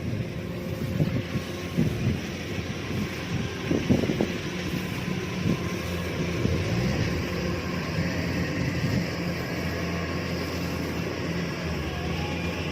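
Kubota DC-105X rice combine harvester running steadily, an engine drone with the hiss of the threshing machinery, and a few brief low thumps near the start and about four seconds in.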